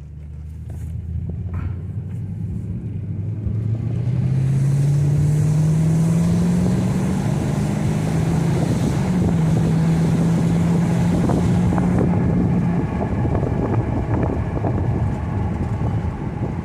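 2002 Mercedes CL500's V8 engine pulling hard as the car accelerates, its note rising steadily, dropping at an upshift about eight seconds in, then holding steady. Wind rushing in through the open windows grows louder as speed builds.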